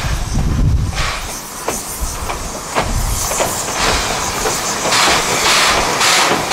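Steam locomotive working past, its exhaust chuffs hissing in a steady beat of about two a second that grows louder from the middle on, with a few sharp clicks of wheels on rail joints before it.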